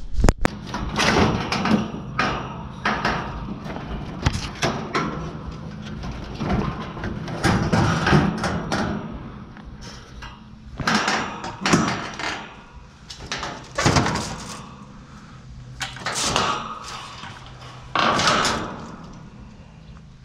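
Irregular knocks, clanks and scrapes of metal scrap being handled and worked by hand during an AC teardown, over a steady low hum.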